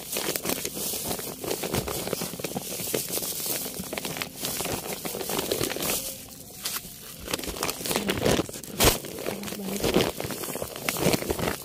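Gloved hands digging through potting soil and pulling at mango ginger roots in a planter bag: irregular rustling, crackling and scraping, with plastic sheeting crinkling. One sharp knock about nine seconds in is the loudest sound.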